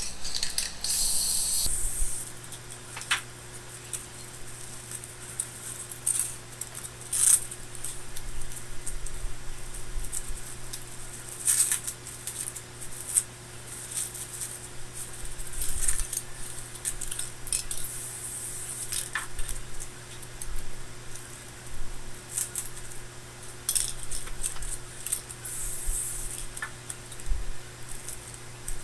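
Scattered crinkling and small taps as foam pieces are handled and pressed down on crinkly plastic sheeting, over a steady low electrical hum. A steady hiss fills the first couple of seconds.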